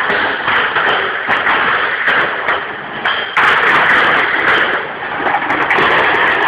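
Plastic beer crates full of glass bottles being thrown, caught and stacked onto wooden pallets: a continuous, irregular clatter of crates knocking together and bottles rattling in them.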